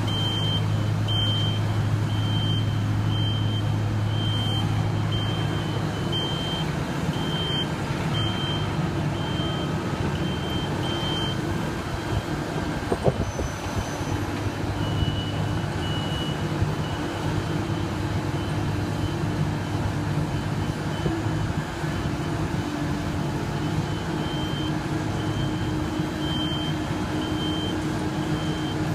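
Heavy construction machinery running with a steady low diesel hum, while a backup alarm beeps at a regular rhythm. The beeping stops about twelve seconds in, comes back briefly a few seconds later and again near the end, and there is a single short knock in between.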